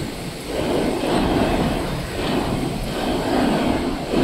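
Steady mechanical rumble with hiss from factory machinery, wavering a little in level.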